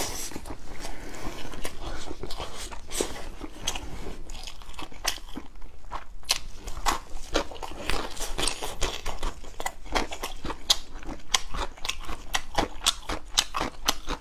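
Close-up eating sounds: a person biting and chewing braised meat torn from a shoulder-blade bone (扇子骨), with many short sharp clicks.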